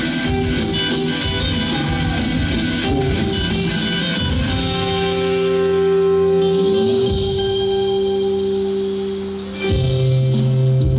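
Instrumental passage of a pop song's backing track, with guitar and drums and long held notes. A note slides upward about seven seconds in, and a new chord comes in near the end.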